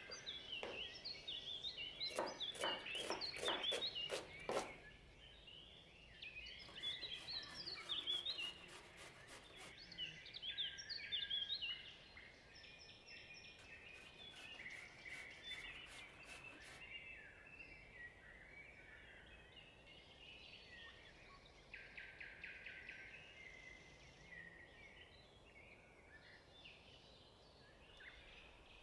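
Birds chirping and singing throughout, quick varied calls. About two seconds in comes a run of rapid, evenly spaced knife chops on a wooden cutting board, lasting a couple of seconds.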